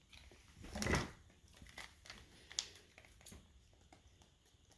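Faint handling sounds: a soft rustle about a second in, then a few small clicks.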